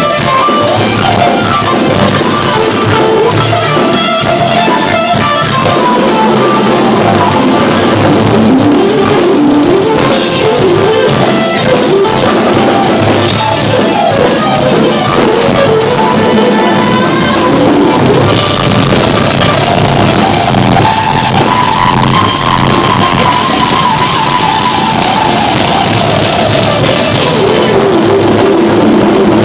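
Live rock band playing an instrumental: lead electric guitar carrying the melody over a drum kit. In the second half a long guitar note slides slowly up and back down.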